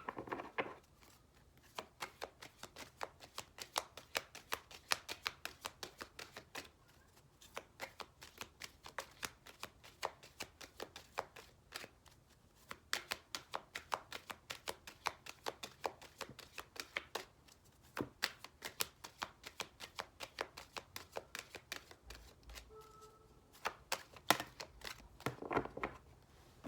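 A deck of oracle cards being shuffled by hand: runs of rapid card clicks a few seconds long, with short pauses between them.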